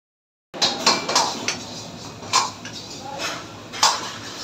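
Metal ladle clanking and scraping against a wok: several sharp knocks close together at first, then two more spaced out.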